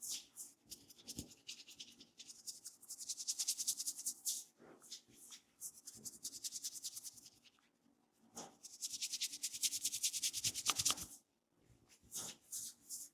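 Hands rubbing briskly over an oiled scalp and hair during a head massage: rapid friction strokes in two long spells of about two seconds each, with shorter single strokes between.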